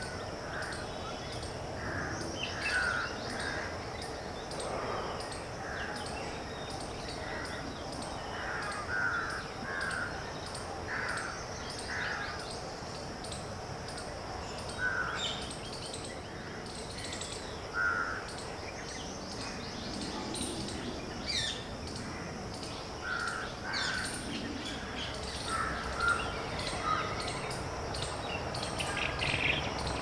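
Outdoor birdsong ambience: short bird calls at uneven intervals over a steady high hiss, with a faint regular high ticking a little more than once a second.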